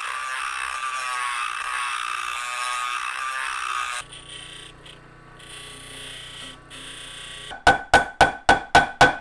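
A handheld rotary tool whines steadily as it buffs old soft solder off a brass trombone part. It cuts to a bench-mounted buffing wheel humming, with grinding hiss coming and going. Near the end come six sharp, ringing mallet taps, about four a second, on the metal brace tube.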